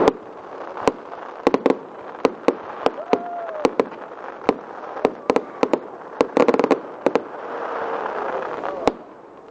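Fireworks going off in quick, irregular succession: a string of sharp bangs and cracks, with a rapid burst of crackling about six and a half seconds in and a hiss before the last bang.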